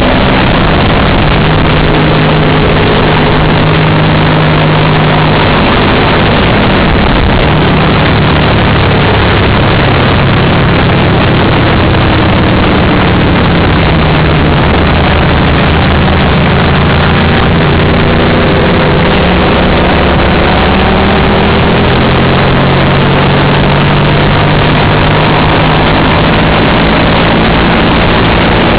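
Racing motorcycle's engine, heard from a camera mounted on the bike at speed, its pitch falling and climbing again several times as the rider shifts and brakes for corners, under a loud rush of wind noise.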